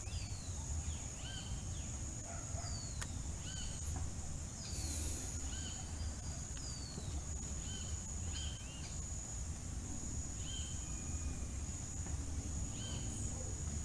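Birds singing, with repeated short clear whistled notes, some sliding downward, over a steady high-pitched tone and a low rumble.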